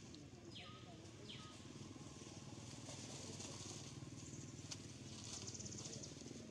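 Faint outdoor ambience: a steady high hiss over a low hum, with two short falling whistles about half a second and a second and a half in, and a rapid high trill near the end.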